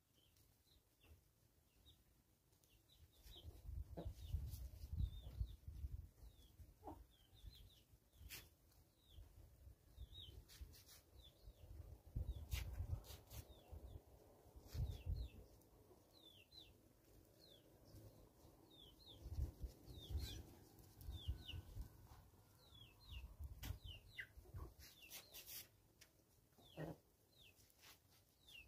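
A free-range chicken flock foraging, faint against many short, high, falling chirps that repeat throughout. Irregular low rumbles and a few sharp clicks come and go from about three seconds in.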